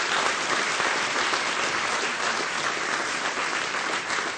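Large audience applauding, a dense steady clapping that begins to thin out near the end.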